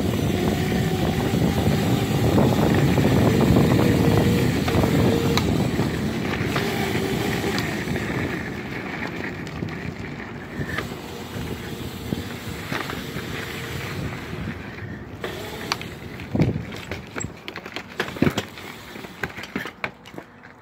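Razor MX650 electric dirt bike ridden over gravel: its electric motor and chain drive whine steadily under the rumble of the tyres and wind on the microphone. The sound grows quieter as the bike slows after about eight seconds, and a few scattered knocks come near the end as it stops.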